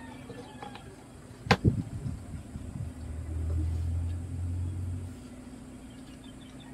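Two sharp knocks about a second and a half in as the plastic instrument cluster is moved on the wooden table, then a low rumble for about two seconds.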